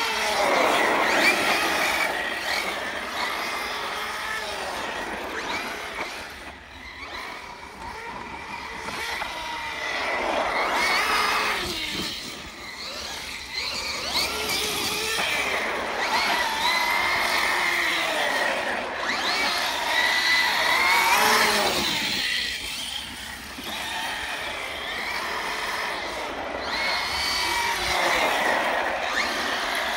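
ARRMA Notorious 6S RC truck's brushless electric motor whining. Its pitch rises and falls again and again in surges as the throttle is worked.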